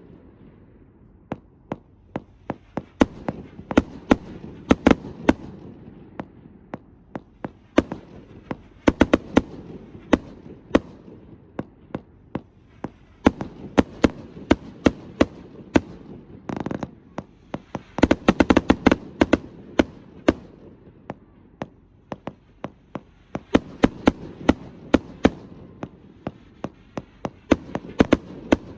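Astroboy consumer fireworks going off in a rapid finale: sharp bangs in irregular clusters every few seconds, over a continuous rumble of bursts.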